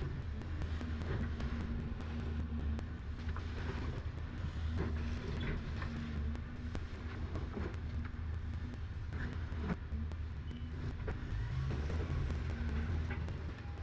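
Excavator engine running steadily, with a tone that cuts in and out and scattered knocks and clanks.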